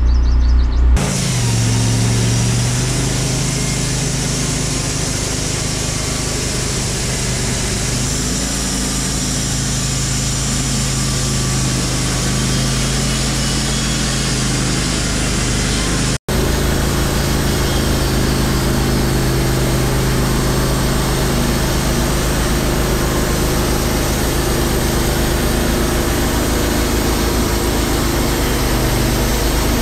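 Wood-Mizer LT15 Wide bandsaw sawmill running steadily, its band blade sawing through a hemlock log. The sound cuts out for an instant about halfway through.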